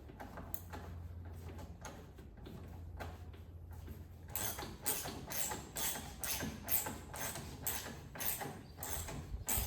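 Ratchet wrench tightening the steering wheel's retaining bolt on a ride-on mower. From about four seconds in it gives short bursts of clicks at about three a second, over a low hum.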